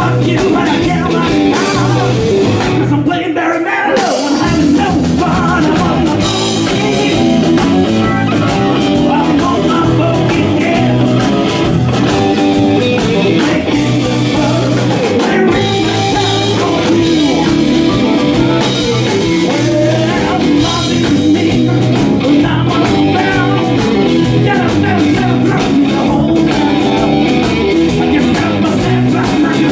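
Live blues-rock band playing: an amplified harmonica cupped against the microphone leads over electric guitar, bass guitar and drum kit. The bass and drums break off briefly about three seconds in.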